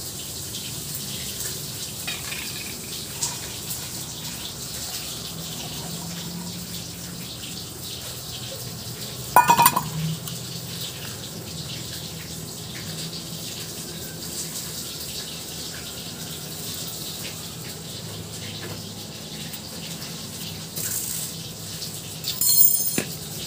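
Hot water draining off boiled chickpeas on a steel plate, trickling and splashing onto a concrete floor. There is one short, loud ringing knock about nine seconds in, and a quick rattle near the end.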